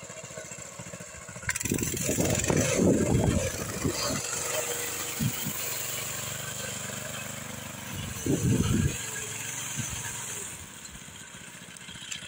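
The homemade trike's walk-behind-tractor engine running, surging louder from about a second and a half in and again briefly about eight seconds in.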